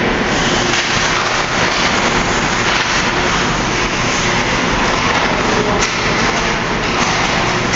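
Steady loud rumbling noise of an ice hockey rink during play, with no separate events standing out.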